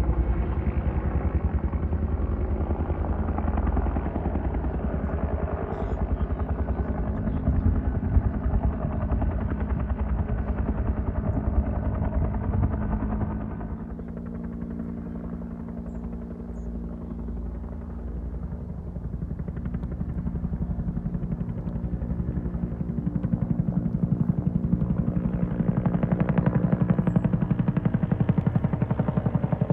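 Helicopter rotor chopping continuously, dropping somewhat in loudness about halfway through and growing louder again near the end as it comes closer.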